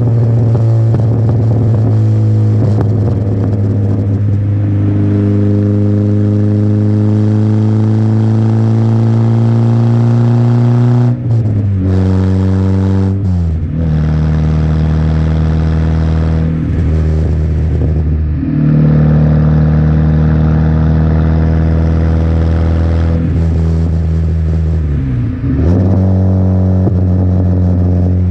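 Peugeot 106's 1.1-litre four-cylinder petrol engine running through a custom exhaust. The note climbs slowly, falls sharply twice about halfway through, then holds fairly steady, with a few brief dips in the sound later on.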